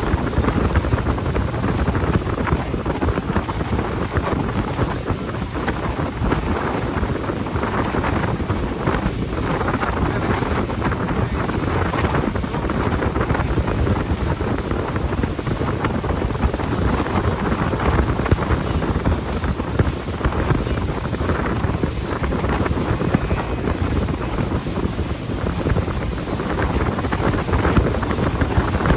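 Wind rumbling steadily on the microphone aboard a moving tour boat, with the boat's running noise and water mixed in beneath.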